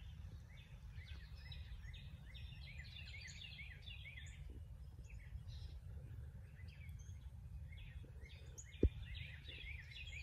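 Songbirds chirping and singing in quick repeated phrases over a steady low rumble, with one sharp click or knock near the end.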